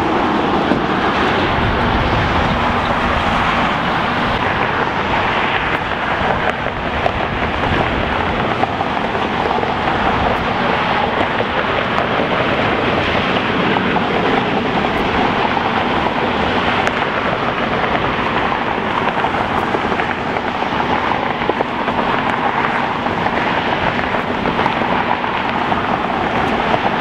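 Steady jet engine roar from airliners moving on the airfield, with wind on the microphone.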